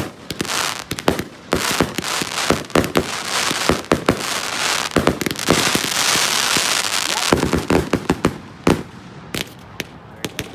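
Consumer aerial fireworks firing in quick succession: launch thumps and sharp bursting reports, rising to a dense stretch of crackle about five seconds in, then thinning to scattered bangs near the end.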